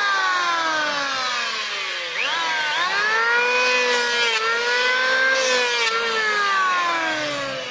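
Handheld electric wood planer whining as it is run along a wooden plank. Its pitch sinks over the first couple of seconds, climbs sharply back up about two seconds in, holds with small dips, then sinks again near the end.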